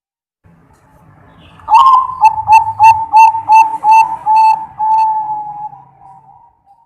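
Zebra dove (perkutut) cooing its song. After a sharp opening note comes a quick run of about eight short coos, about three a second, ending in one long drawn-out note.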